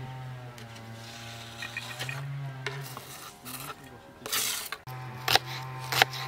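Cooking sounds: a utensil stirring and scraping in a pan with a light sizzle, over a steady low hum, then two sharp knocks near the end.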